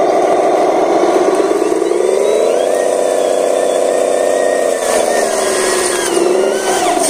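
Engine sound of a radio-controlled model dump truck as it drives through mud. It revs up about two seconds in, holds a higher pitch, then eases off near five seconds and picks up again near the end, with a thin whine above it that rises and falls with the revs.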